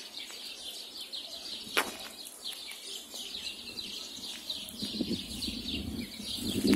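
Many small birds chirping continuously, quick high chirps overlapping one another. A single sharp click about two seconds in, and a low rumbling noise building over the last couple of seconds.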